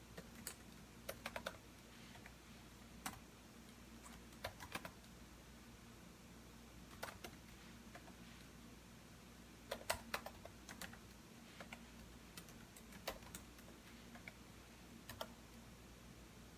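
Computer keyboard being typed on in short, irregular bursts of a few keystrokes with pauses between, over a faint steady hum.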